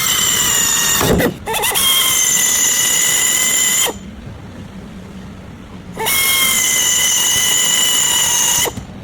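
A power tool running with a steady high-pitched whine over a hiss, in three runs: a short break about a second in, a stop at about four seconds, and a restart at about six seconds that runs until near the end.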